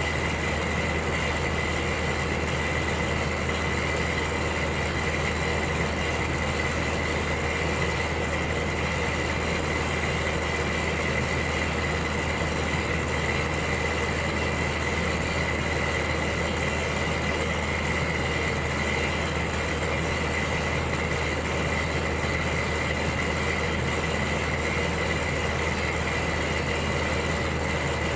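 Electric heater running steadily: an even whirring hum with a low drone and a faint steady high tone, unchanging throughout.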